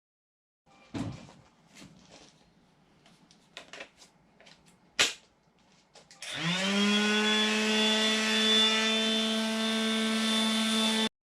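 Wood pieces being handled with a few knocks and clicks, then an electric power tool spins up about six seconds in and runs steadily at high speed, sanding the sharp corners off a small pressure-treated wood block. It cuts off abruptly near the end.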